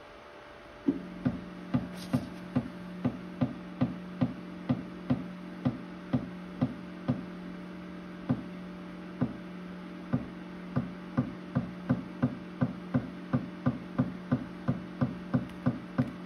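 Clay extruder motor of a Tronxy ceramic 3D printer starting about a second in and running with a steady hum, with a sharp click about twice a second that quickens slightly near the end. It is pushing partly dried clay out through a nozzle that has just been cleared.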